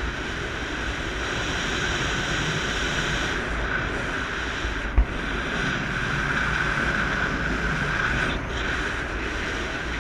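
Wind rushing over a pole-mounted action camera's microphone in paraglider flight: a steady noise, with one brief thump about halfway through.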